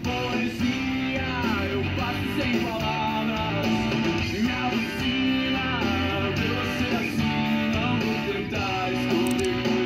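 A song with guitar and a singing voice, playing steadily throughout.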